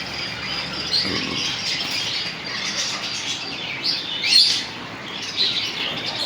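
Many pet parrots and other shop birds chirping and calling over one another, with a louder shrill call about four seconds in.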